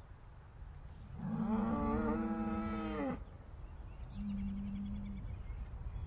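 Upset cows mooing: one long moo of about two seconds that drops in pitch as it ends, then a second, shorter and steadier moo about a second later, over a steady low rumble.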